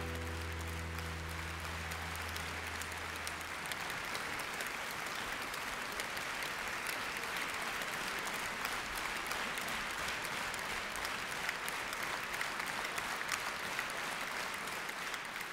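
Large open-air crowd applauding steadily. The last low chord of the music dies away about three seconds in.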